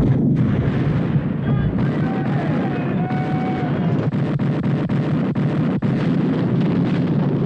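Broadside of muzzle-loading naval cannon in a sailing-ship battle: a heavy blast opens a continuous rumble of gunfire, with a run of sharp cracks about four to six seconds in.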